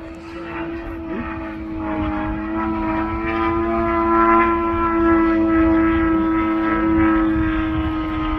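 Four-cylinder Desert Aircraft DA-200 gas engine of a large RC aerobatic plane running in flight with its propeller. It is a steady, even drone that rises slightly in pitch and grows louder over the first four seconds, then holds at full loudness.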